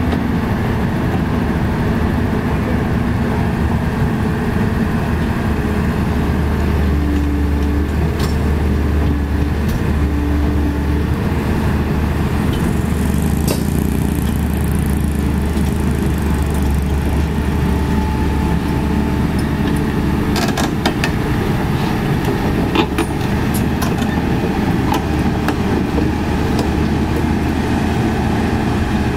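CAT 320D excavator's diesel engine running steadily under hydraulic work as the machine swings and tracks, with a few sharp clicks or clanks a little over two-thirds of the way through.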